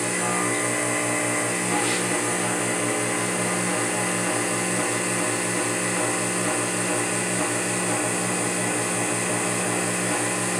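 Vacuum pump of a vacuum-bag press running steadily, a low rapidly pulsing hum under a constant hiss, holding the bag at vacuum.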